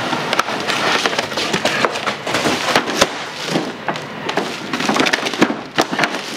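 Cardboard box being torn and pulled apart, then plastic packaging being handled and crinkled: a dense run of sharp crackles and tearing rasps.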